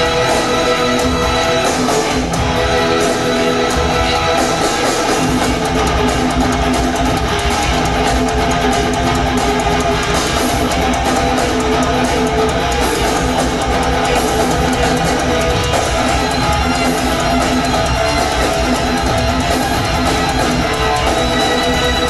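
Rock band playing a loud instrumental live: distorted electric guitar over bass and drums, recorded on an audience bootleg. The low end fills in heavier about five seconds in.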